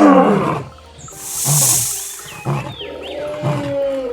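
Wild animal calls with a lion roaring, in short low grunts about once a second, over background music. A burst of hiss comes about a second in.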